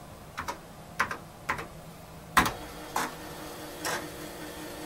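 Keys clicking on a TRS-80 Model III keyboard as the password is typed. About halfway through there is a loud clack, and then the floppy disk drive starts with a steady hum and a couple more clicks as it is accessed.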